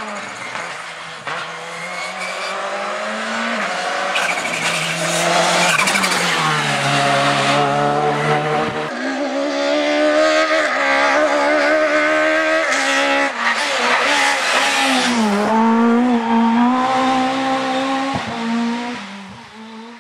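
Rally car engine at full throttle, its revs climbing and then dropping sharply at each quick gear change. It grows louder as the car comes close and fades out near the end.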